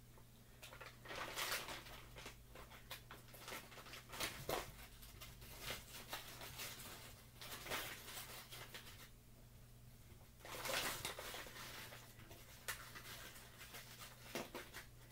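Plastic shrimp bag crinkling and rustling, with soft irregular clicks and taps as raw shrimp are taken out and laid by hand in aluminium foil pans; the noisiest handling comes about a second and a half in and again about eleven seconds in.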